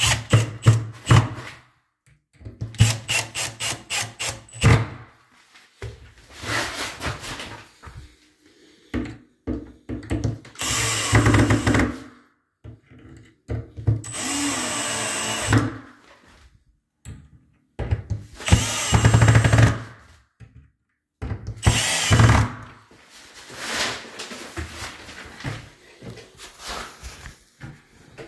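Power drill driving screws into metal concealed cabinet hinges, running in repeated bursts of one to two seconds with short pauses between.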